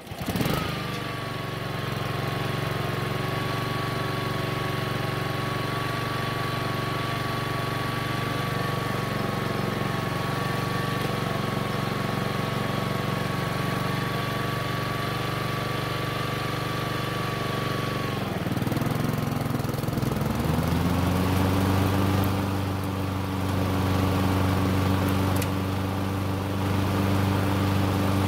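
Honda lawn mower's single-cylinder engine starting and running steadily, with a thin steady whine over it, on its first run after a transmission seal repair. About two-thirds through, the engine note dips briefly, the whine stops, and the engine settles into a new steady pitch, a little louder.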